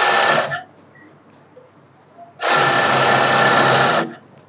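Two Lion industrial coverstitch machine sewing a five-thread double-sided coverstitch in short runs. A brief run ends about half a second in. A second, steady run of about a second and a half starts just before the halfway point.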